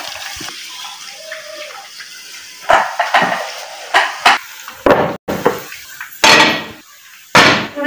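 Metal cookware clattering: a series of sharp knocks and short scrapes as a flat iron griddle (tawa) is handled and set down on a gas stove burner.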